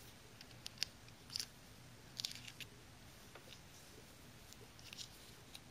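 Faint, irregular clicks and taps of small hard plastic toy parts being handled: a toy rifle rack and its miniature rifles. The clicks bunch up about a second and a half in and again just after two seconds.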